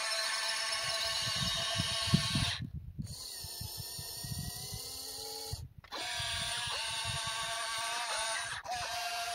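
Electric motors of a radio-controlled excavator whining as it works, their pitch shifting, with two brief cut-outs, the first about two and a half seconds in and the second near the middle, over a low rough rumble.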